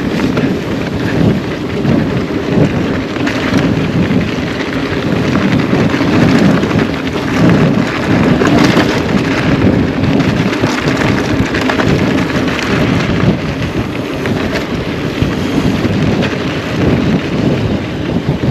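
Heavy wind buffeting the microphone over the rumble and knocking of a hardtail mountain bike riding over rough trail.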